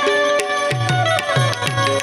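Indian folk music: a sustained, droning melody instrument over a steady hand-drum rhythm, with low drum strokes that bend in pitch.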